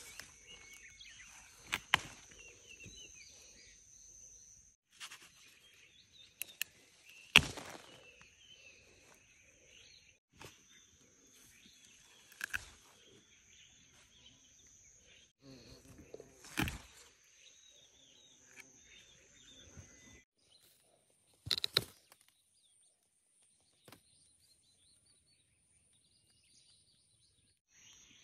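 Outdoor garden ambience: birds chirping over a steady high-pitched whine, with a few sharp clicks and knocks from the plants and fruit being handled. The sound cuts off and restarts several times between clips, and near the end a quieter stretch carries only a thinner, higher steady tone.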